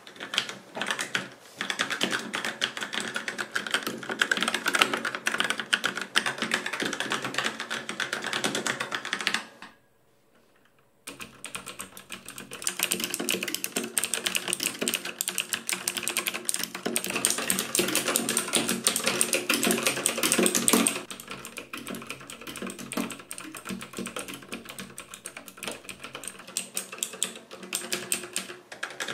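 Fast typing on mechanical keyboards, the ABKO Hacker K640 with Outemu brown switches and a second keyboard with Outemu blue switches: a dense, continuous clatter of keystrokes. It breaks off for about a second roughly a third of the way in and is softer in the last third. The K640's keystrokes carry a hollow case ring that the owner finds strong.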